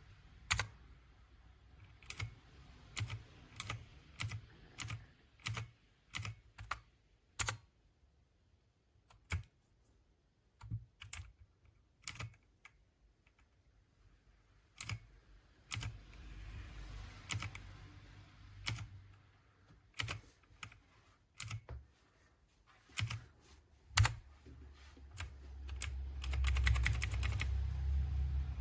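Keys of a ZIYOU LANG 60% mechanical keyboard with brown switches being pressed one at a time, a separate keystroke about every half second to second. Near the end comes a quick flurry of keystrokes over a low rumble.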